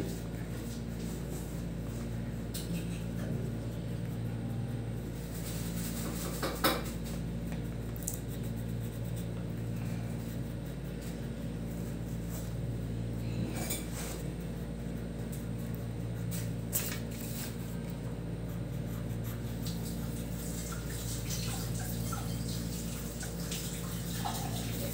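A steady low hum, such as a household appliance running in the room, with three light clicks or clinks over it, the loudest about a quarter of the way in.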